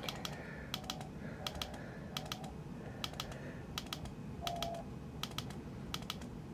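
Front-panel push-button on a QMX+ transceiver being double-clicked again and again, a pair of sharp clicks roughly every 0.7 s, stepping the radio through its bands.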